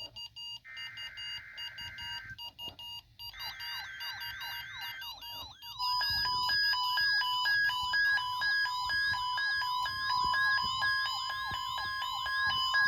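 NOAA Weather Radio required weekly test signal. It opens with three short screeching bursts of SAME digital header data. From about three seconds in, a warbling alert sweeps up and down two to three times a second. About six seconds in, a steady high warning tone starts under it and the sound gets much louder.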